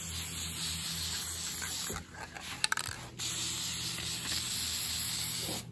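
Aerosol can of PJ1 foam air filter oil spraying onto a foam dirt-bike air filter: a steady hiss for about two seconds, a short break with a few clicks, then a second hiss of about two and a half seconds.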